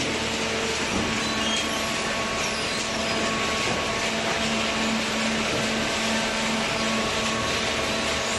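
Hydraulic baler's power unit running: a steady mechanical drone from the motor and pump with a constant low hum.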